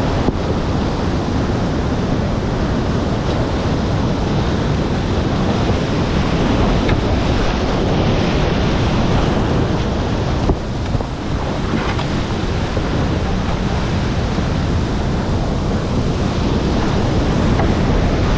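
Loud rushing of a whitewater rapid, heard from inside a kayak running it, with water splashing over the camera. There is a brief knock about halfway through.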